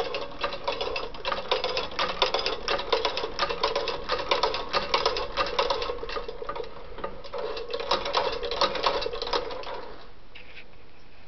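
1921 Singer 29-4 industrial cobbler's sewing machine running, its mechanism clattering with a rapid stream of clicks. It eases off briefly midway, picks up again, and stops about ten seconds in.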